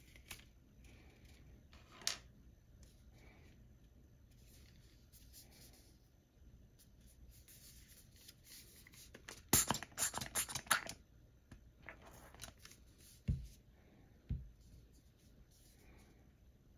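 Handling noises from a plastic foaming-pump bottle of face wash being unlocked and pumped: scattered clicks, a quick run of sharp clicks and rattles about ten seconds in, then a brief hiss and two dull knocks.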